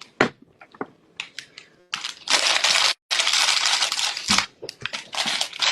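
Small assembly pieces being handled: scattered light clicks and knocks, with two loud rustling bursts of about a second each in the middle.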